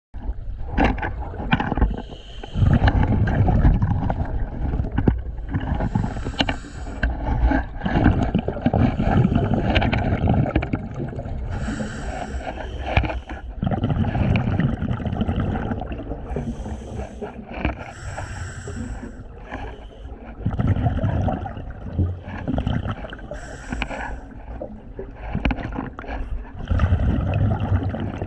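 Scuba diver breathing through a regulator underwater: a short hiss of inhalation about every six seconds, each followed by a longer, low gurgling rush of exhaled bubbles.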